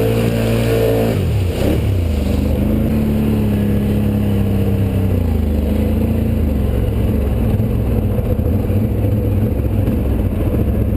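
ATV engine running while riding, its revs falling and climbing again about a second and a half in, then rising and easing off again through the rest.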